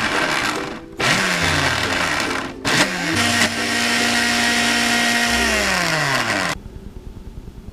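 Electric blender motor run in bursts, its whine gliding down in pitch as it spins down after each; the longest burst lasts about three and a half seconds. A weaker pulsing sound follows near the end.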